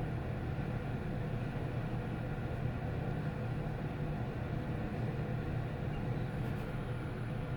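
Steady low hum and rumble inside a Hyundai LUXEN WBLX1 passenger elevator car travelling upward at its rated 60 m/min.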